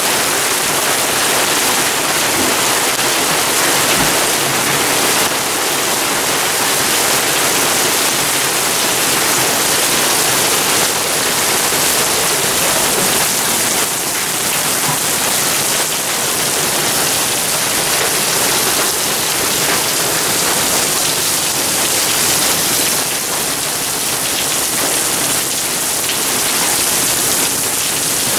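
Marble-sized hail falling with rain onto a concrete driveway: a dense, steady hiss of countless small impacts.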